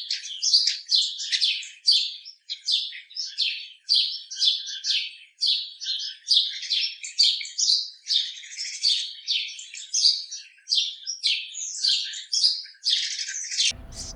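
Birds chirping and twittering in a dense, continuous run of short high notes, several a second. Near the end the chirping stops abruptly and is replaced by a low background rumble with a few sharp clicks.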